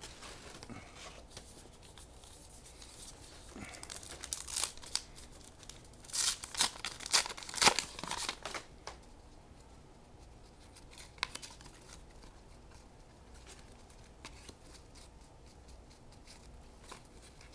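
Foil wrapper of a trading-card pack being torn open and crinkled: a run of sharp crackling rustles from about four to nine seconds in. Fainter rustling of the cards being handled comes before and after.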